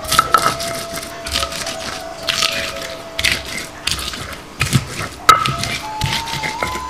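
Shallots being crushed and ground with a stone pestle on a flat stone grinding slab (Minang batu lado), in gritty scraping strokes about once a second. One sharp knock of stone on stone about five seconds in.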